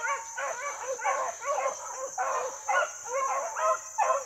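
A pack of rabbit hounds baying in chorus on the trail of a rabbit, many voices overlapping in a continuous cry with short lulls.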